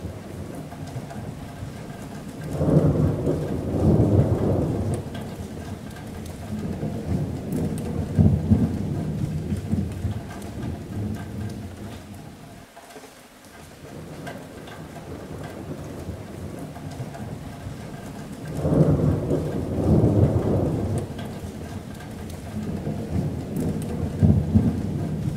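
Thunder rumbling over steady rain on a metal roof. Long low rumbles swell up about three seconds in, again around eight seconds, and loudest again around nineteen and twenty-four seconds, with a brief lull between.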